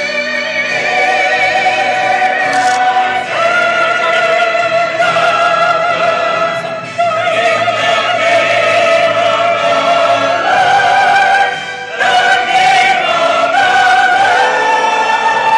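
A solo singer holding long, high sung notes with a wide vibrato over orchestral accompaniment, with short breaks between phrases.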